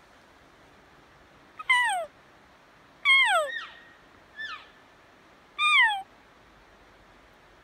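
Elk cow calls: four short mews, each sliding down in pitch, spaced about a second or more apart, the third one fainter.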